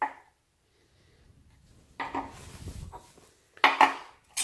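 Steel parts of a dimple die set clanking against each other and the steel welding table as they are handled: a few sharp ringing metal knocks, two in quick succession near the end.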